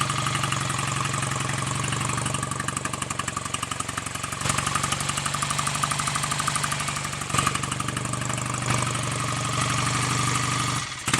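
BSA A65 Lightning 650 cc parallel-twin engine idling steadily with an even, rhythmic beat, freshly rebuilt. The owner judges the ignition timing still too retarded.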